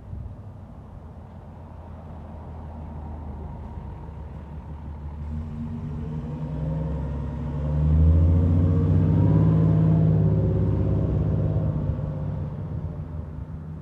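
KME Predator fire engine driving past without a siren. Its diesel engine note rises and grows louder as it approaches, is loudest about eight to ten seconds in, then drops in pitch and fades as it moves away.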